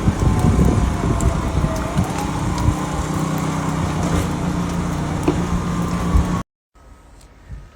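A motor vehicle's engine hum amid gusty wind buffeting the microphone. About six and a half seconds in it cuts off abruptly to a much quieter background.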